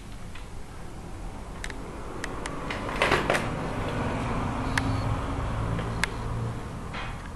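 A small electric motor in a model raft humming low, swelling about three seconds in and easing off near the end, with scattered sharp clicks and a louder clatter of clicks about three seconds in.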